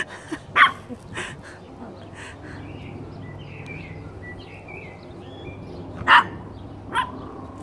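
Small dogs barking: several short, sharp yaps in the first second or so, then two more near the end.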